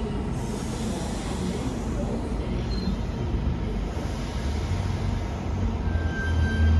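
Passenger train running through the station: a steady low rumble with rail noise that grows toward the end. A thin steady whine comes in about six seconds in.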